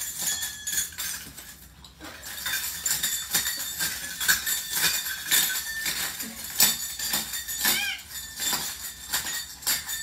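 Stainless steel bird-toy bells jangling and clinking in irregular bursts as a cockatoo walks through and pushes at the pile, busiest from about two seconds in. A short cockatoo call near eight seconds.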